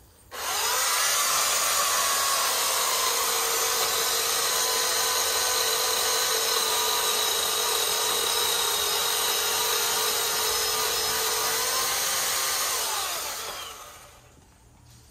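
Battery-powered chainsaw starting at full speed about a third of a second in and running steadily as it cuts into a tree trunk, with a steady whine. Near the end it winds down and stops.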